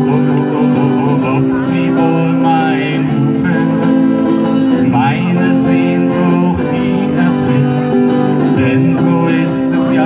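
Two acoustic guitars playing a country-style song live through a PA system.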